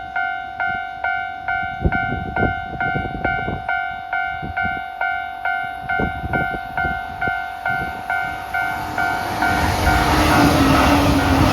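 Japanese level-crossing alarm bell dinging in an even two-tone beat, about two strikes a second. Over the last couple of seconds the rising rush of an approaching express train, an E261-series Saphir Odoriko, builds underneath it.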